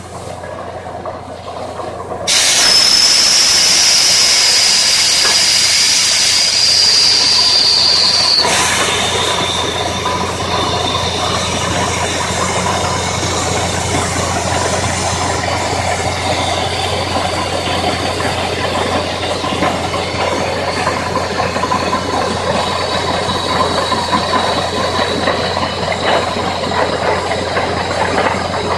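Portable air-driven water well drilling rig at work: compressed air starts rushing through the drill suddenly about two seconds in, a loud hiss with a high whistle that sinks slightly in pitch, then carries on a little quieter over a steady low machine hum.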